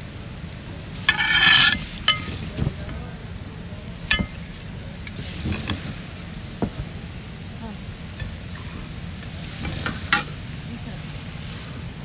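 Kitchen-utensil clatter as a wire frying basket of hot fried fish is set on a plate: a loud metallic scrape and rattle about a second in, then scattered clicks and knocks of utensils and plates over a low steady rumble.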